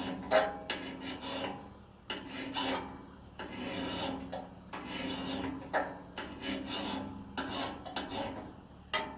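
A Pittsburgh hand metal file rasping along the steel blade of a pair of loppers, about ten separate strokes at roughly one a second, each with a faint ring. The file is sharpening the edge and working out its nicks and ridges.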